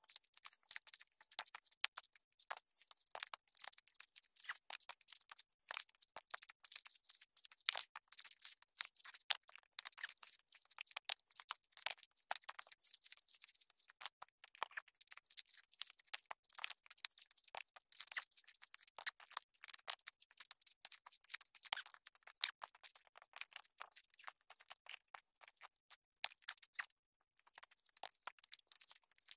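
Coconut husks being pried and torn off on pointed husking stakes: a dense run of irregular cracking and tearing of dry fibre.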